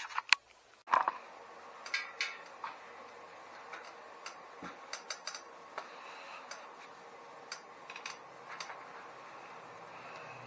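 Scattered light clicks and taps from hand work on a bicycle wheel, as a new inner tube and tyre are fitted onto the rim. The clicks come at irregular intervals, a few sharper ones near the start.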